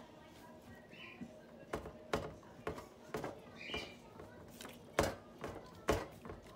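A dog nosing and tugging at a knotted towel treat toy on a tile floor, hunting out the treats hidden in the knots: soft rummaging broken by several sharp knocks, the loudest about five and six seconds in.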